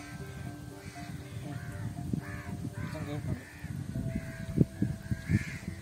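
Crows cawing again and again in short calls over background music, with low knocks and bumps of handling close to the microphone, the sharpest about four and a half and five and a half seconds in.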